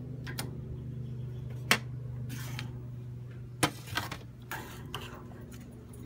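Metal tongs clicking and clinking against the grill grates and a metal sheet tray as smoked bones are lifted off the grill, with several sharp separate clicks, over a steady low hum.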